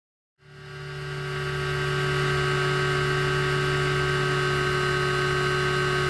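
Steady hum of an Align T-Rex 550E electric RC helicopter's motor and rotor, fading in over the first couple of seconds and then holding an even pitch, with a low flutter underneath.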